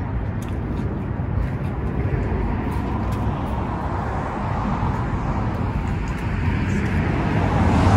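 Steady road traffic rumble, with a vehicle passing that grows louder near the end.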